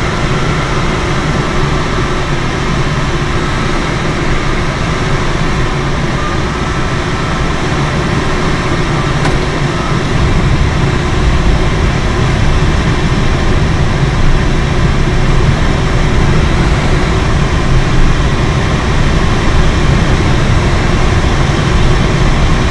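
Steady rush of airflow over a Schleicher K13 glider's canopy and fuselage, heard inside the cockpit on the approach to land. It gets a little louder about halfway through.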